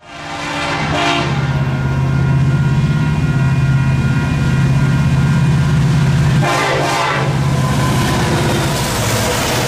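Union Pacific diesel freight locomotive approaching and passing at a grade crossing, its horn sounding and its engine running, with short horn blasts about a second in and again around seven seconds in.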